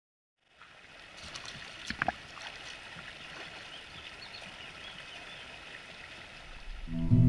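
Shallow stream flowing over stones, starting about half a second in, with a person's feet splashing through the water; the loudest moment is a few sharp splashes about two seconds in. Acoustic guitar music comes in at the very end.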